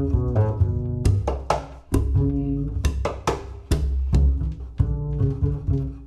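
Solo double bass played pizzicato: a run of plucked notes and double stops with sharp percussive string attacks mixed in.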